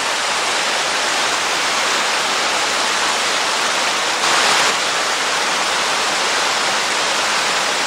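Waterfall pouring: a steady, loud rush of falling water, swelling briefly about four and a half seconds in.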